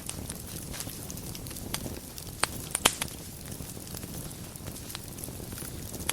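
Wood fire burning in a fireplace: a steady low rumble of flame with scattered crackles, and a few louder pops in quick succession about halfway through.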